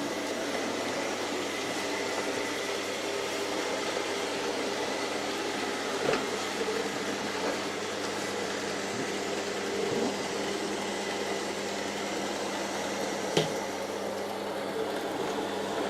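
Two robot vacuum cleaners, an ILIFE A4 and an X5, running together: a steady whir of their suction motors and brushes, with a few short knocks, the sharpest about 13 seconds in.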